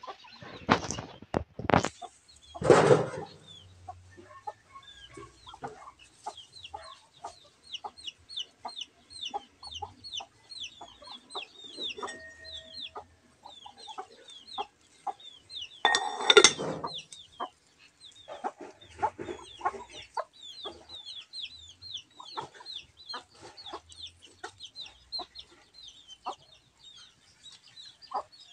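Chickens clucking and calling, with a steady run of short, high, falling peeps. A few louder, sharper sounds stand out: two about a second in, one near three seconds and one about halfway through.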